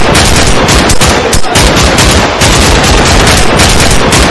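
Gunfire sound effect: machine-gun fire from several guns, in fast unbroken bursts.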